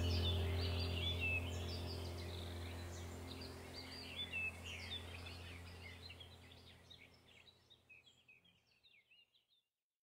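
Many birds chirping and calling over a steady low drone, the whole soundtrack fading out gradually to silence near the end.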